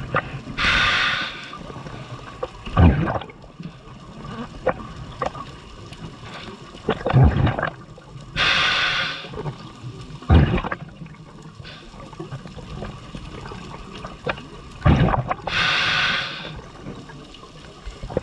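Scuba diver breathing through a regulator underwater: three slow breath cycles, each a hissing inhalation of about a second followed by a burst of rumbling, gurgling exhaust bubbles.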